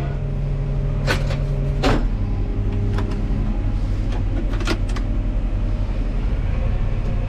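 Tractor engine running steadily, with several sharp knocks and clatters over the first five seconds.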